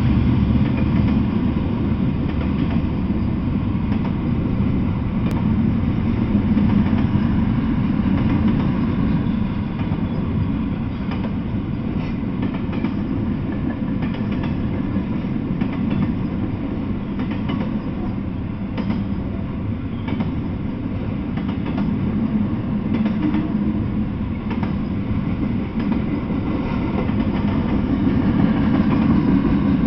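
Double-stack intermodal freight train rolling past: a steady rumble of container well cars and their wheels on the rails, with faint scattered clicks.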